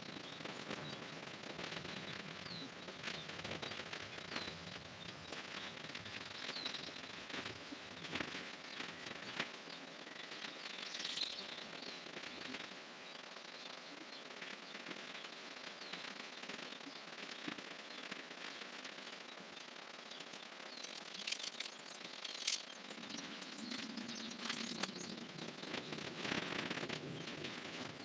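Faint, irregular crackling and clicking, with a few sharper pops about nine seconds in and again a little past the twenty-two second mark.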